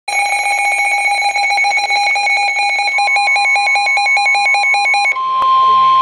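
Midland NOAA weather alert radios sounding their alarm for a severe thunderstorm warning: rapid, overlapping electronic beeping for about five seconds, with a second beep pattern joining partway through. Then it switches to a single steady warning tone, the weather radio alarm tone that comes before the warning message.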